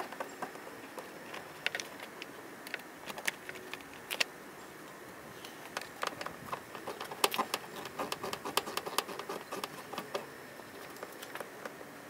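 Scattered small clicks and ticks of a screwdriver working the screws and clips of a Toyota Land Cruiser 80 Series plastic door panel, coming thickest near the middle.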